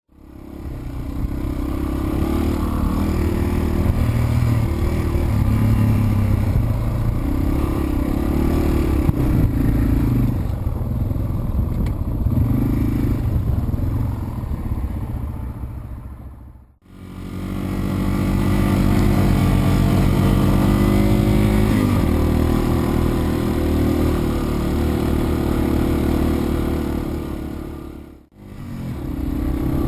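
Yamaha TW200's single-cylinder four-stroke engine running while riding, its pitch rising and falling with the throttle. The sound cuts out briefly twice, about 17 and 28 seconds in.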